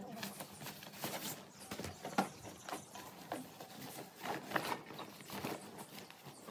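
Camping gear being packed into a rucksack: irregular rustling of bags and soft knocks as items are pushed in, with a sharper knock about two seconds in.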